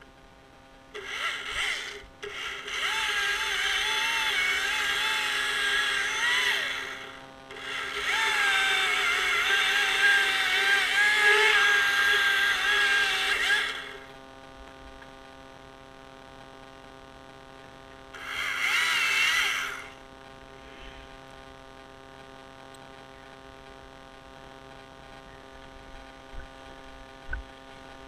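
Husqvarna chainsaw run at full throttle in several bursts while cutting limbs, the longest about six seconds, its pitch dipping under load. Between bursts it drops back to a steady idle.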